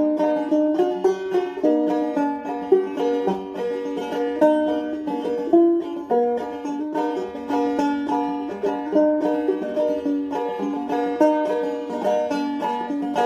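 Solo banjo being picked: a quick, steady run of plucked notes.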